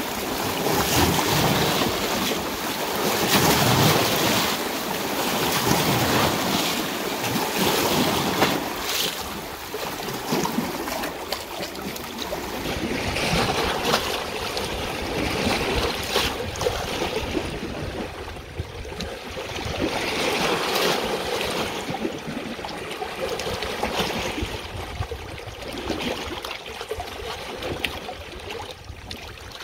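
Water rushing, a continuous hiss that swells and eases every few seconds. The brightest part of the hiss thins out about halfway through.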